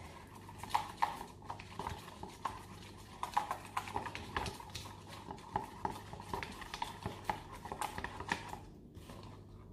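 Plastic stirring stick clicking and scraping against the sides and bottom of a plastic tub while blue slime mixture is stirred, in quick irregular taps that die away near the end.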